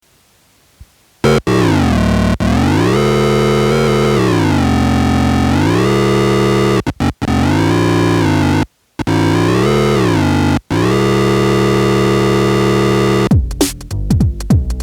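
Korg monotron analogue synthesizer playing a held, buzzy tone that slides smoothly up and down in pitch, cutting out briefly a few times. Near the end, Zoom RT-223 drum machine beats come in.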